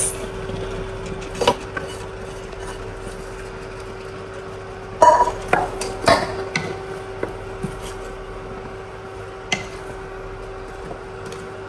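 Wooden spatula stirring thick okra soup with chopped ugu leaves in a metal pot, with scattered knocks and clinks of pot and utensils, the loudest a cluster about five to six seconds in. A steady hum runs underneath.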